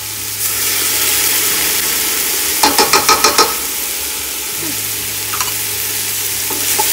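Onion, ginger and garlic sizzling steadily in hot oil in a stainless steel pot. A quick run of about six sharp taps comes a little under three seconds in.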